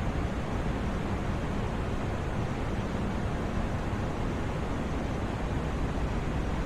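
Steady white noise for sleep: an even, unbroken rush with no changes, heavier in the low end than the high.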